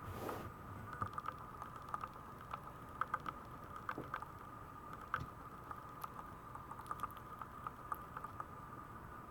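Light, irregular clicks and taps from a Maltese puppy moving about, over a steady faint high hum.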